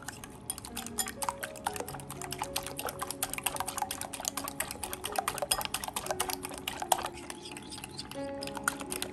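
Raw eggs being beaten with a fork in a glass bowl: rapid, even clicking of metal against glass. Soft background music plays underneath.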